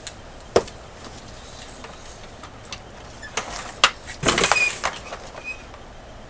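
Handling sounds on a vacuum cleaner before it is switched on: a few sharp clicks and knocks, and a short rush of noise just after four seconds. The motor is not yet running.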